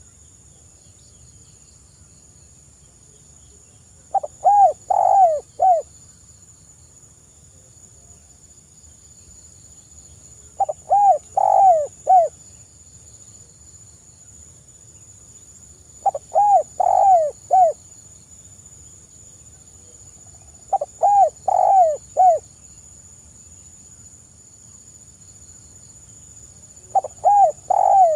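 Spotted dove cooing: five phrases of four or five short, quick coos each, about every five to six seconds.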